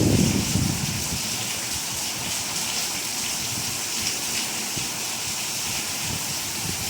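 Steady rain falling, a continuous even hiss. It opens with a low rumble that dies away within the first second.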